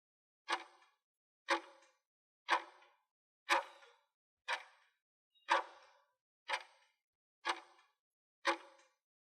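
Countdown timer's clock-tick sound effect, ticking once a second: nine ticks.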